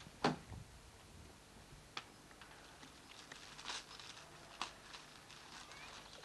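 A single sharp click about a quarter second in, then a few faint scattered taps and light rustles.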